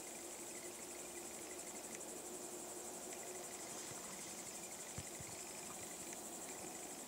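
Steady high-pitched chirring of crickets, a fine rapid pulsing that does not let up, over a faint steady low hum. A soft low thump about five seconds in.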